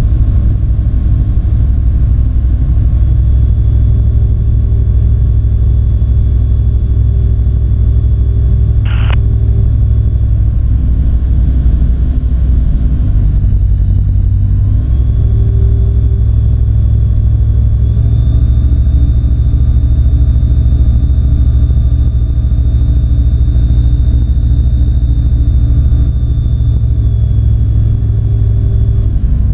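Light aircraft's engine and propeller droning steadily as heard inside the cockpit on final approach, the engine note shifting around fourteen seconds in and again around eighteen seconds in. A brief click about nine seconds in.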